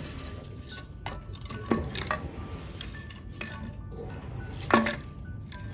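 Old wooden pallet boards knocking and clattering against each other and the concrete as they are picked up and laid down: several sharp wooden knocks, the loudest about three-quarters of the way through.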